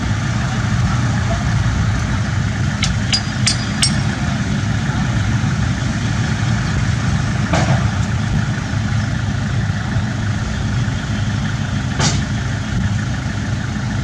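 Small crawler bulldozer's diesel engine running steadily as it pushes a dump truck. A few sharp metallic clicks cut through: four quickly about three seconds in, then single ones in the middle and near the end.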